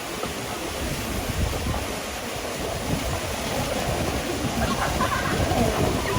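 Steady rush of a waterfall and stream, with a low, uneven rumble of wind on the microphone.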